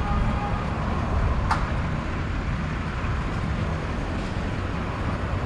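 City street traffic: a steady rumble of passing vehicles, with a single sharp click about a second and a half in.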